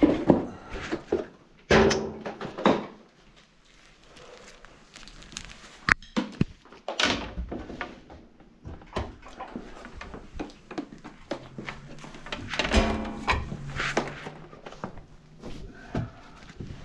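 Knocks, thuds and clatter of equipment being carried and set down around a kitchen sink, with a cabinet door opened under the sink near the end.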